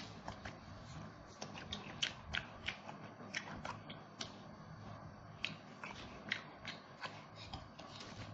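A mouth chewing roast duck: irregular sharp wet clicks and smacks, about two a second, some louder than others.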